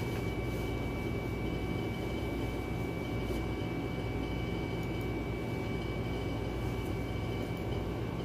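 Steady low machine hum with a faint constant high whine over it, and a few faint clicks.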